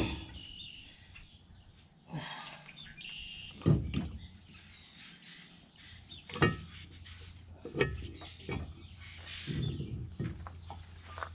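A handful of separate knocks and clunks from hand work on excavator parts, with birds chirping between them.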